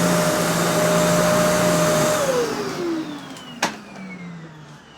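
Kenmore Elite vacuum cleaner running with a steady whine, then switched off about two seconds in, its motor winding down with a falling pitch. There is a single click partway through the spin-down. The owner still finds something in it screechy and suspects the motor.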